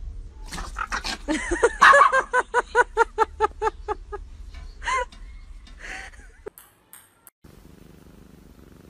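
Dog yipping in a fast, evenly spaced run of high calls, about five a second, during rough play, then a couple of single calls. Near the end, a cat purring steadily.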